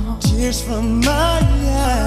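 Background music from a slow pop song: a wavering melody line over deep drum hits that drop in pitch.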